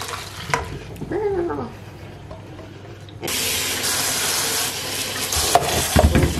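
Boiling pasta water pouring from a pan through a plastic colander into a stainless-steel sink: a short splash as the spaghetti goes in, then after about three seconds a steady rush of water, with a few knocks of the pan near the end.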